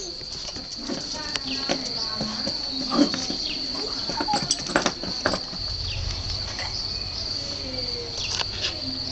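Crickets trilling steadily in one high-pitched unbroken tone, with a few scattered light knocks and taps.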